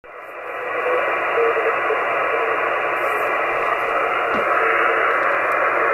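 Elecraft K2 transceiver receiving CW on the 30 m amateur band through its speaker. Steady band hiss, cut off above and below by the receiver's filter, fades up over the first second. Through it a weak Morse code signal is keyed on and off as a faint tone of dots and dashes, barely above the noise at about S1.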